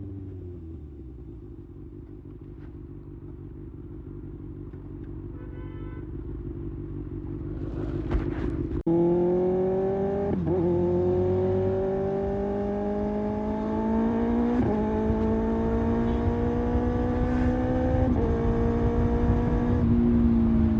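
Kawasaki ZX-6R inline-four through an IXIL slip-on exhaust. Its note falls and settles into quiet low running for several seconds, then turns suddenly loud about nine seconds in. The pitch then climbs slowly and dips sharply at each of four gear changes as the bike accelerates.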